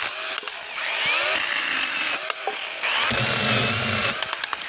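Extool 21 V cordless mini chainsaw running and cutting through a tree branch, its motor whine rising as it revs up about a second in, dipping briefly, then revving again with a heavier sound from about three to four seconds in.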